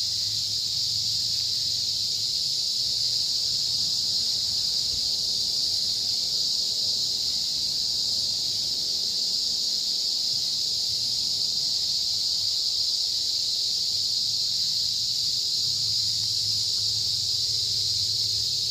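A steady, high-pitched chorus of insects droning without a break, over a faint low rumble.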